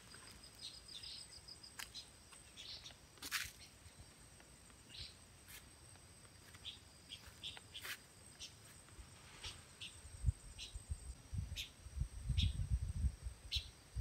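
Tropical forest-edge ambience: a steady high insect drone with scattered short bird chirps and clicks. Irregular low thumps and rumble come in over the last few seconds.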